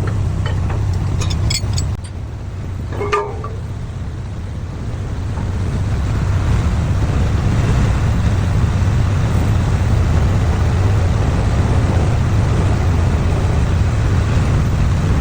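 Pile-driving machinery running with a steady low rumble and no separate hammer blows, growing louder from about five seconds in. A short falling tone sounds about three seconds in.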